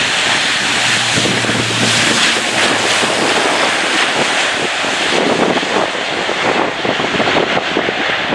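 Airbus A400M's four Europrop TP400 turboprop engines and propellers running at high power in a loud, steady roar as the aircraft passes the crowd low and draws away.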